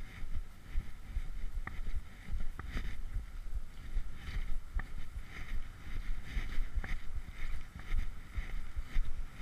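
Wind buffeting the microphone with an uneven low rumble. A faint high pulsing sound comes about once a second, with a few short thin chirps.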